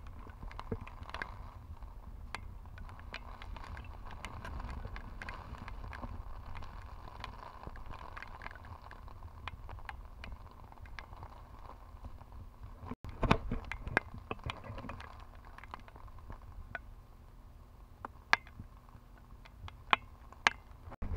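Hurricane wind buffeting the microphone as a steady low rumble, with raindrops striking the camera as scattered sharp ticks. The ticks come louder and more often in the later part.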